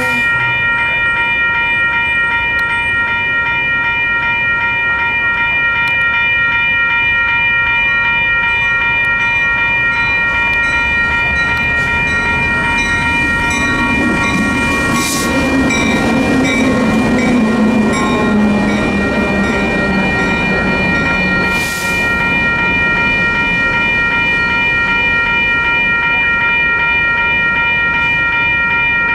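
A WCH Gen 1 Type 2 electronic railroad-crossing bell rings continuously in an even, repeating ding while the crossing is activated. Midway through, a low rumble swells and then fades.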